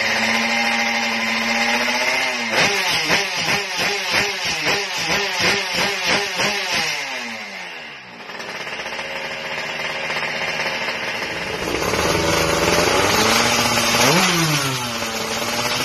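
Yamaha F1ZR two-stroke road-race engine revved on the stand: it holds high revs, is blipped about twice a second for several seconds, then the revs fall away. A second racing underbone's engine then comes up and is blipped, with rising and falling revs near the end.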